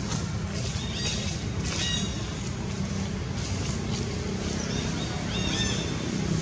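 Steady low rumble of wind on the microphone, with several short high chirps about a second in, near two seconds and twice around five and a half seconds.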